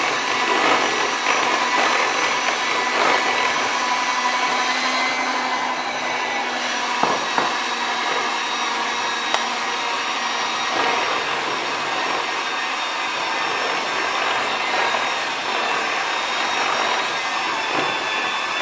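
Electric hand mixer running steadily, its beaters working flour into a batter of beaten eggs and sugar in a plastic bowl, with a few brief knocks of the beaters against the bowl about seven and nine seconds in.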